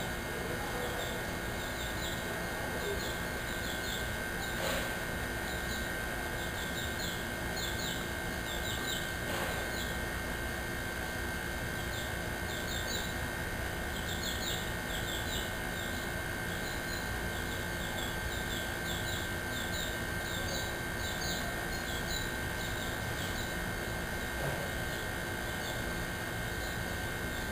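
Birds chirping in short, quick runs of high chirps, over steady background noise with a constant high-pitched tone. A couple of faint knocks come through, the first about five seconds in.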